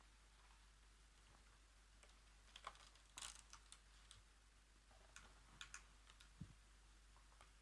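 Quiet, scattered taps and clicks from handling a paper colouring book, with a short paper rustle about three seconds in.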